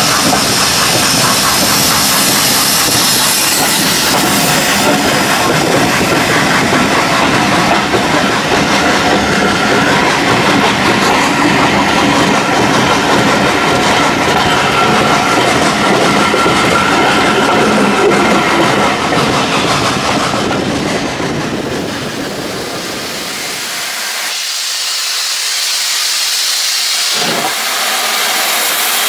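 Steam train passing close by at speed, a steam locomotive followed by its coaches, with wheels clattering over the rail joints. After about 23 seconds the rumble stops abruptly and a steady high steam hiss from a locomotive standing close by takes over, with a few clanks.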